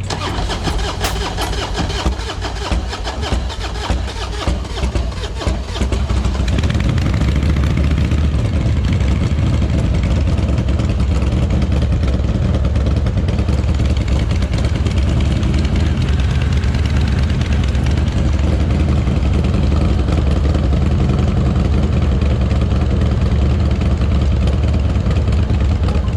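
Motorcycle engine starting about six seconds in, after a few seconds of irregular clicking and knocking, then running steadily at idle with a deep, even rumble.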